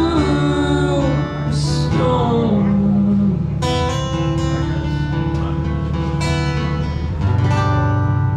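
Acoustic guitar played solo: sustained, ringing notes for the first few seconds, then chords strummed repeatedly from about three and a half seconds in.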